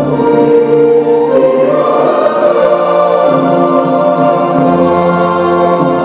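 Choral music: a choir singing slow, long held notes.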